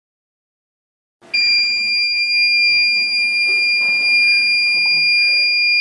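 Piezo buzzer of a transistor rain-detector circuit sounding its alarm: a loud, steady high-pitched tone that starts suddenly about a second in and holds without a break, the signal that water has been detected on the sensor.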